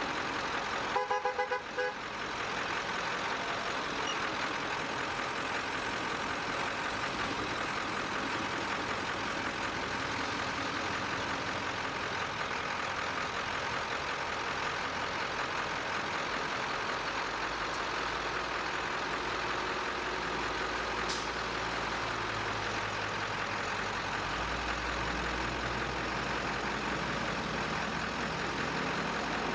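A quick series of vehicle horn toots about a second in, then steady noise of trucks and cars driving past. A deep heavy diesel engine rumble builds in the second half as a fire engine passes.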